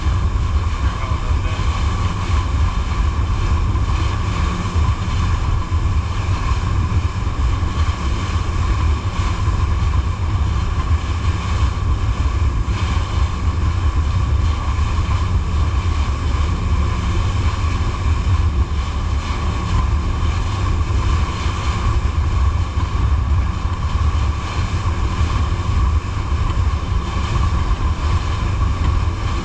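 Jet boat under way, its engine running steadily, with wind rumbling on the microphone and water noise along the hull.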